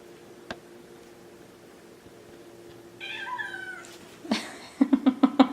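Maine Coon kitten meowing during rough play: one high, falling cry about three seconds in, then a quick run of short, loud sounds near the end.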